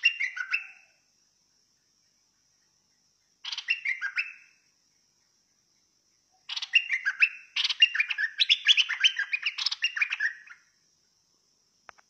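Caged bulbul singing in three bursts of rapid, chattering notes: two short phrases, then a longer run of about four seconds.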